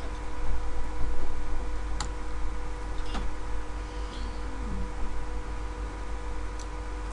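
Steady electrical hum and low recording noise, with three short clicks, about two, three and six and a half seconds in, from a stylus tapping on a drawing tablet while handwriting.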